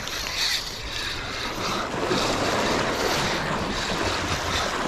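Sea waves washing against the shore, with wind buffeting the microphone, while a spinning reel is cranked against a hooked fish.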